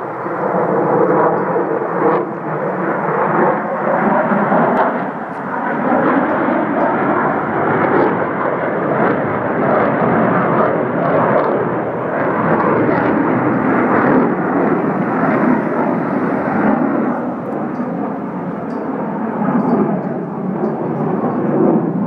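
Loud jet engine noise from a Sukhoi jet flying overhead: a continuous dense rumble that swells and eases as it passes.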